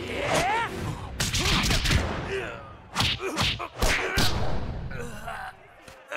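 Anime fight sound effects: a flurry of sharp punch impacts, most between about one and four and a half seconds in, with short strained cries from a fighter between the hits.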